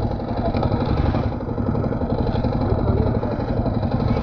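KTM four-stroke enduro motorcycle engine running steadily, with no big revs.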